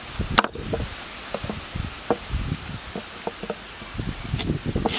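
Large knife cutting a fresh root on a thick round wooden chopping block. There is one sharp knock about half a second in, scattered lighter cuts and taps, then two more sharp knocks near the end.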